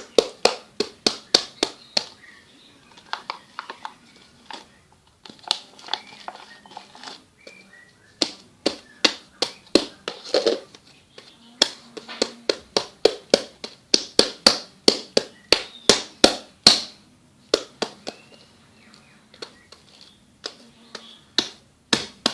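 Sticky slime being squeezed and kneaded by hand, making rapid runs of sharp clicks and pops, several a second, in bursts broken by short pauses.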